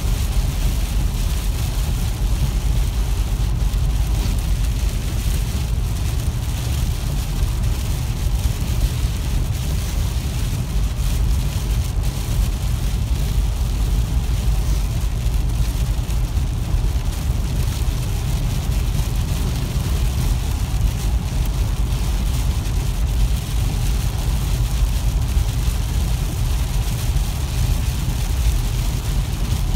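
A car driving at highway speed in heavy rain, heard from inside the cabin: a steady low road and engine rumble under an even hiss of rain and wet-road spray, with the ticking of raindrops striking the windshield.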